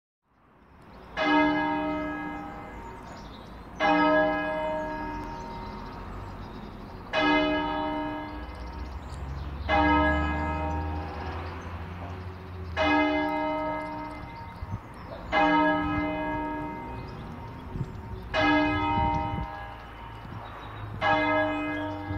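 A church bell tolling slowly, eight strokes about every three seconds, each ringing out and fading before the next: a toll rung in mourning to mark a death.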